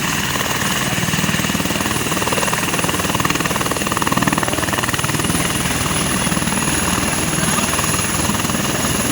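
Rescue helicopter running during takeoff: a steady fast beat of the rotor blades under a constant high turbine whine.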